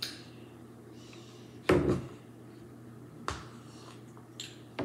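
Eating utensil knocking against a bowl of rice: a few separate knocks and clicks, the loudest a heavier knock about two seconds in, over a faint steady hum.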